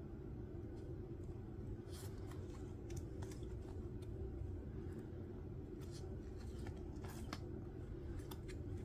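Faint handling of a deck of glossy oracle cards: cards slid off the front of the deck and tucked behind it, giving a few light scrapes and clicks over a steady low hum.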